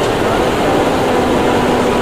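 Loud, steady machinery drone: a constant rumble with a few held humming tones, unchanging throughout.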